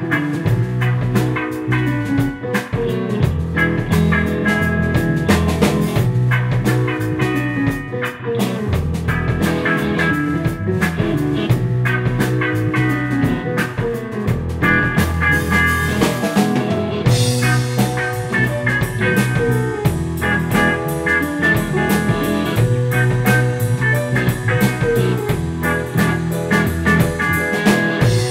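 A band jamming funk: electric guitar, drum kit, bass and keyboards playing together. About halfway through, a hissing swell builds and cuts off suddenly.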